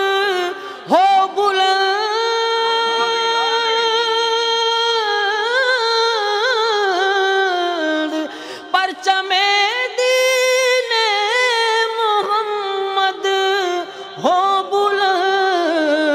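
A man singing an Urdu naat unaccompanied, drawing out long melismatic held notes with ornamented turns in pitch, breaking off briefly twice between phrases.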